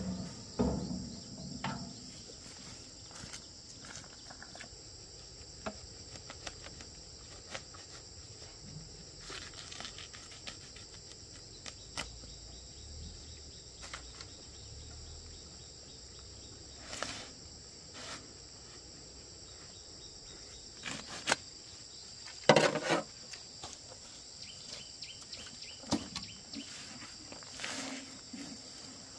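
Steady high-pitched chorus of insects, with scattered clicks and knocks; a couple of louder knocks come about three-quarters of the way through.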